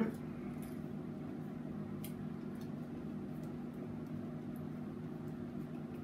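A hand screwdriver turning a light switch's mounting screw into the electrical box, with a few faint ticks, over a steady low hum in the room.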